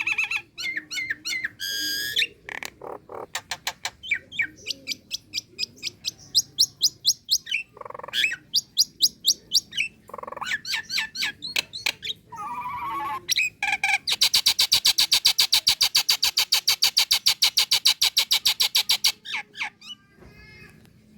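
Nias hill myna calling: a string of sharp clicks and short whistled notes, then a fast, even rattle lasting about five seconds before the calls stop near the end. It is the call of a female calling to a male, of the kind used to lure or set off other mynas.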